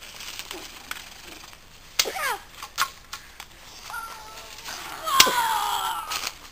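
A boy's voice giving short yelps, then a drawn-out cry falling in pitch about five seconds in, over sharp snaps and clicks as two boys scuffle in undergrowth.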